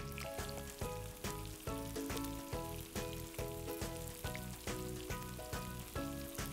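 Seer fish steaks and crushed unpeeled garlic sizzling in oil on a dosa griddle, over background music with a steady beat.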